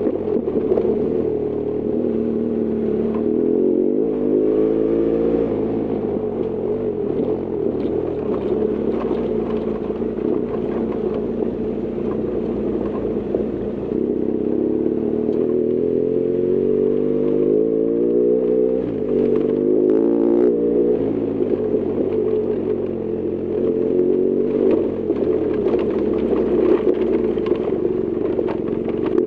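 BMW R1200GS Adventure's boxer-twin engine running under way, its pitch rising and falling with the throttle several times and dropping sharply about two-thirds through, with scattered rattles and clicks over it.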